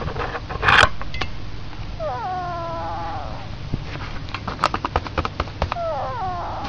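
A duckling snoring in its sleep: two long whistling wheezes, each falling in pitch, about four seconds apart. A brief noisy rustle comes near the start and a run of light clicks falls in between.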